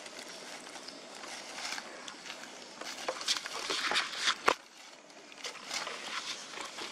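Dry leaf litter rustling and crackling on the ground, with a busier run of crunches and clicks about halfway through that ends in one sharp click.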